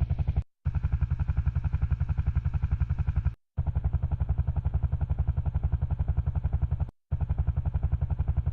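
Headphone test sound from the computer's audio panel playing: a fast, even, low pulsing rumble in three runs separated by short breaks. It is used to check that the headset's left and right ears both work.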